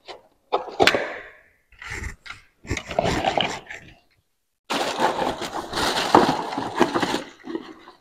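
Cardboard boxes and plastic fire alarm devices being handled on a tiled floor: scrapes, knocks and cardboard rustling in short separate bursts, then a longer stretch of rustling about five to seven seconds in.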